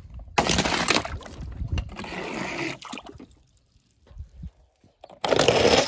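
Water splashing and sloshing in a plastic tub as small toy cars drop into it. There is a short quiet spell in the middle, and another sudden burst of splashing near the end.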